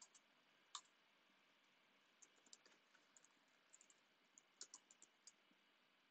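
Faint computer keyboard keystrokes over near-silent room tone: scattered single clicks and short bursts of typing, with one sharper click just under a second in.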